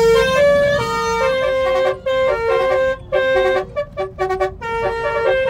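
A telolet multi-tone musical horn playing a melody: loud, steady horn notes that step from pitch to pitch in short phrases, with brief gaps between them.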